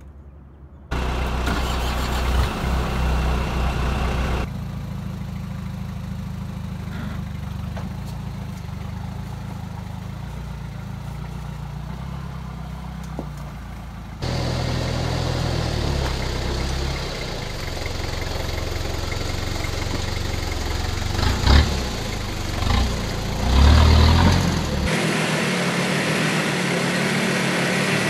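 Toyota Hilux's 3.0-litre turbo diesel engine running at low revs under load while rock crawling, the level stepping up and down abruptly a few times. Near the end come a few short, louder surges.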